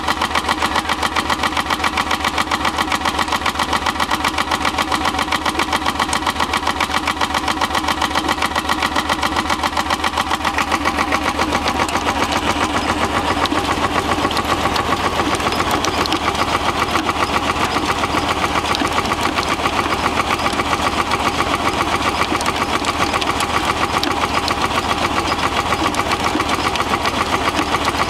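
Landini hot-bulb (testacalda) tractor's single-cylinder two-stroke engine running with a steady, even beat, turning its belt pulley to drive a Bubba threshing machine by flat belt.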